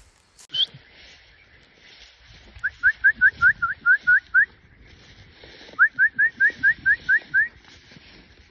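A bird singing: a single higher up-slurred note, then two runs of about eight to ten quick, rising whistled notes at about five a second, with a short pause between the runs.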